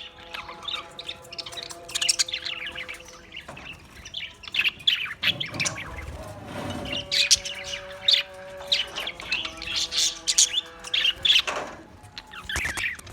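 A flock of small Australian parrots chirping and chattering in quick, overlapping calls, with the odd squawk. Steady held tones sound underneath in stretches of a second or more.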